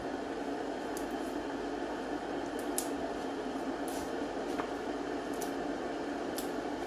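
Fresh leafy greens being picked over by hand: several short, sharp snaps and crackles as leaves and tender stalks are torn off, over a steady background hiss.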